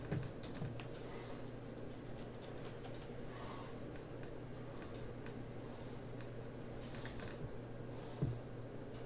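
Faint, irregular clicking of typing on a laptop keyboard, over a steady low hum.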